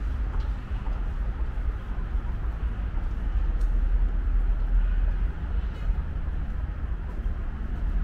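City street ambience: a steady low rumble of traffic with a general outdoor hum.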